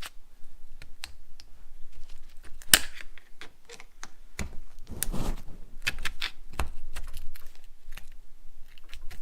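Irregular clicks and knocks of metal parts and tools being handled on a hydraulic cylinder as its end gland is pushed down to reach the locking ring, with one sharper knock about three seconds in.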